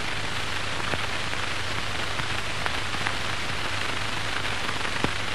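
Steady hiss and crackle of an old film soundtrack over a low hum, with a few faint clicks.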